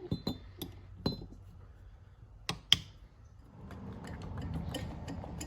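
Hand tools clicking and clinking against metal engine parts while the rocker arm bolts on a pit bike's cylinder head are tightened. A scatter of light clinks comes in the first second, two sharp clicks about two and a half seconds in, then a steady low noise.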